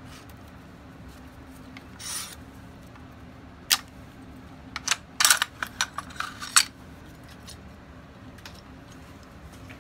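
Metal-on-metal clicks and scrapes of an AK-47's recoil spring assembly and bolt carrier being pulled out of the stripped receiver: a short scrape about two seconds in, a sharp click a little later, then a quick run of clicks and sliding rasps between about five and six and a half seconds.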